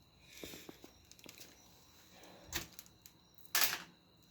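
Handling noises from working on a dryer's wiring and panels: a few light clicks, then two short scraping rasps, the second, just over three and a half seconds in, the loudest.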